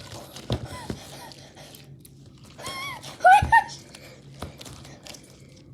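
A child's high voice calls out briefly about three seconds in, with soft handling knocks and rustles before and after it.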